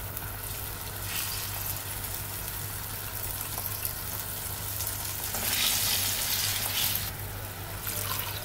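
Curry base of oil, tomato and tamarind water sizzling in a hot clay pot as ground coconut paste is scraped in with a spatula. The sizzle swells for a second or two about five and a half seconds in.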